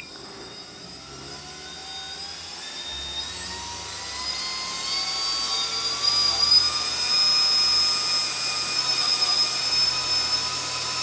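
3D-printed PLA 120 mm fan driven by a race-quad brushless motor, spinning up past 5,500 RPM toward 6,000: a whine with rushing air that rises in pitch and grows louder over the first six seconds, then holds high and steady. At these speeds the blade has begun to wobble and vibrate.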